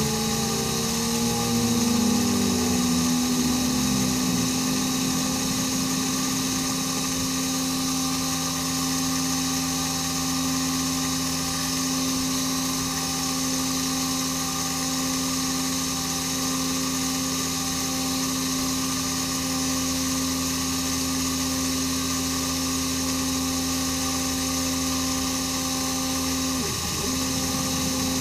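CNC-converted mini mill cutting quarter-inch steel plate with a quarter-inch carbide roughing end mill at 4,500 RPM under flood coolant: a steady machine whine with several held tones. A few gliding tones in the first two seconds, and a short break in the main tone near the end.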